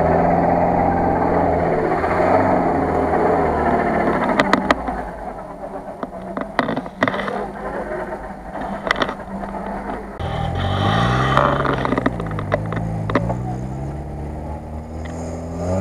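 Off-road 4x4 engines under load. A UAZ-469's engine runs steadily with a gritty rush of tyres on dirt for the first few seconds. Scattered sharp clicks and knocks follow, and from about ten seconds in an engine revs up and down several times.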